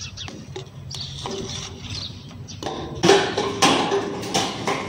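A series of knocks and clatters against a metal recycling bin, some ringing briefly, loudest about three seconds in.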